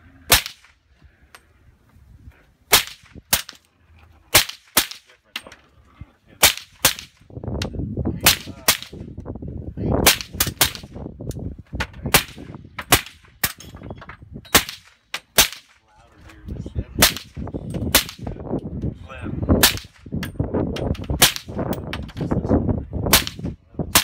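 Suppressed AR-15-style rifle fired semi-automatically: a long string of about two dozen single shots at an uneven pace of roughly one a second.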